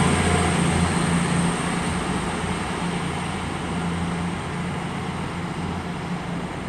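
East Midlands Railway Class 222 Meridian diesel-electric multiple unit moving away up the line. Its low diesel engine hum, with a steady droning tone, fades gradually as it recedes.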